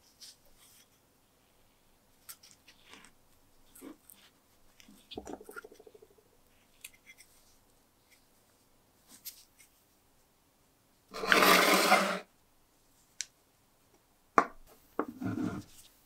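Small brass parts of a vintage Tommy-style lighter being handled in gloved hands: scattered light clicks and taps, a short squeak about five seconds in, a louder one-second rasp past the middle, and a few knocks near the end as a screwdriver is set to the tank's screw.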